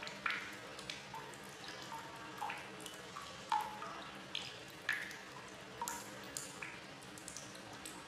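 Water plinking and plopping at irregular intervals, about a dozen short pitched blips over a faint steady hiss.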